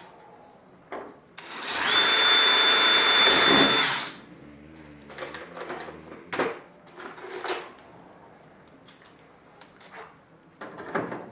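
Cordless drill running at full speed for about two and a half seconds as it drills a rivet hole through the aluminium stiffener and wing skin, then spinning down. Scattered clicks and clinks follow as clecos are taken from a bin and set in the holes with cleco pliers.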